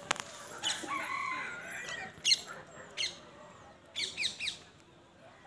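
Birds calling: a wavering call about a second in, then sharp, quick chirps about two and three seconds in and a run of three or four near four seconds, the loudest about two seconds in. A sharp click right at the start.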